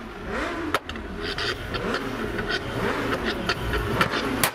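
Volkswagen Scirocco being revved while standing, its engine note rising and falling with each blip. The exhaust crackles and bangs on the overrun, with sharp pops as it spits flames from the tailpipes.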